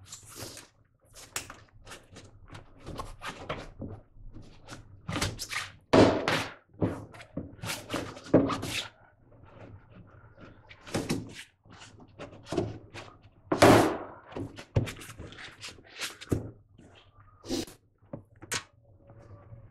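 Plastic inner fender liner of a Honda Accord being handled and pushed back into place, with many irregular knocks and rustles. The two loudest thumps come about six seconds in and again about fourteen seconds in.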